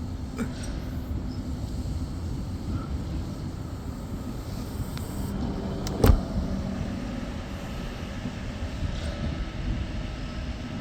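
NSW TrainLink Oscar H-set electric train running, a steady low rumble with one sharp knock about six seconds in, followed by a steady hum for a couple of seconds.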